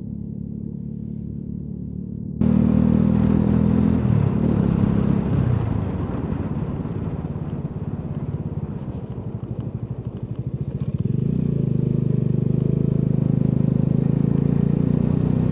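Motorcycle engine running while riding, with wind and road noise. It all gets suddenly louder about two seconds in; the engine note rises and falls for a few seconds, then settles steady.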